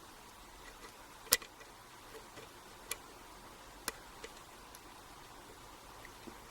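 Hook pick and tension wrench working the pins of a 5-pin ERA euro cylinder lock, giving a handful of faint, sharp metallic clicks, the loudest a little over a second in and others about three and four seconds in.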